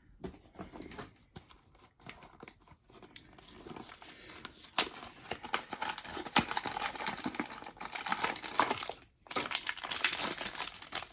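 A blind box being opened by hand: the cardboard box is torn and the foil pouch inside is crinkled and ripped. Scattered light handling clicks give way, about four seconds in, to a steady run of crackling and tearing, with a brief pause near the end.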